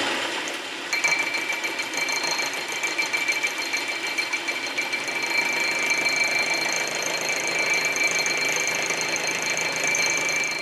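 South Bend 11 metal lathe taking a facing pass across a square 1-inch steel plate in its chuck. About a second in the cut starts: a steady hiss of cutting with a high, thin whine above it.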